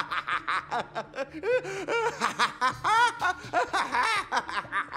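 A cartoon villain's gloating male laugh: a long unbroken run of quick 'ha-ha' bursts, rising and falling in pitch.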